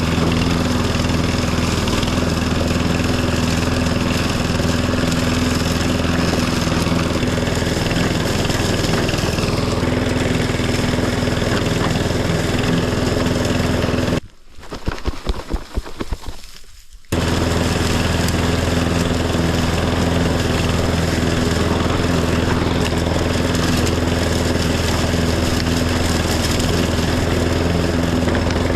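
Riding lawn tractor engine running steadily at a constant pitch. About halfway through, the sound cuts out suddenly for about three seconds, leaving only irregular low thumps, then returns abruptly.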